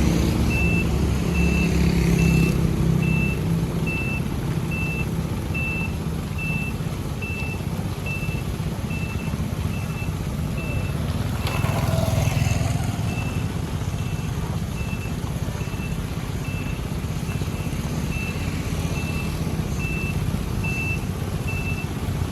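Heavy construction machine's reversing alarm beeping steadily, about three beeps every two seconds, over the low rumble of diesel engines working. A brief louder swell of engine noise comes about twelve seconds in.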